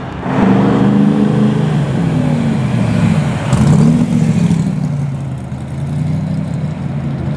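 A car's engine and exhaust revving as it pulls away and accelerates, the pitch dropping and climbing again several times, loudest just after the start and again about four seconds in.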